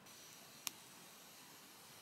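Near silence: a faint steady hiss, broken by a single sharp click under a second in.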